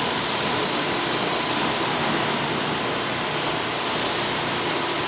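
10-ton self-aligning welding turning roll running under test, giving a steady even machine noise with a faint steady tone.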